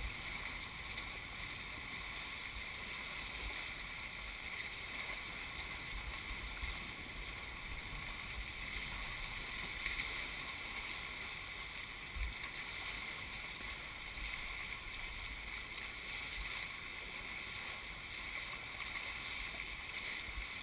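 Steady rush and hiss of water and spray along the hulls of a Hobie 21SE catamaran sailing fast through choppy water, with a few dull low thumps.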